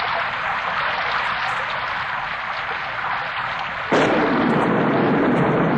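Steady rushing noise with no clear pitch, which jumps suddenly louder and deeper about four seconds in.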